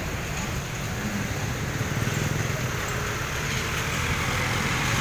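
Street traffic: motor vehicle engines running and passing, a steady low rumble that grows louder about two seconds in.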